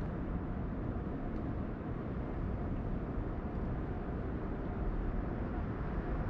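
Steady low background rumble of a harbour, with no distinct events standing out.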